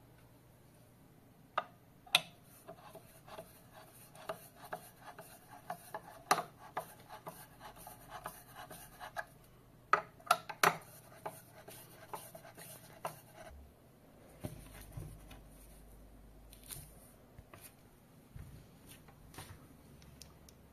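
A long-shafted hand tool turning hex nuts on the bolts of a monitor arm's metal wall plate: a run of irregular metallic clicks, knocks and scrapes, a few a second, with a cluster of sharper knocks about halfway. Softer handling rumble and scattered clicks follow.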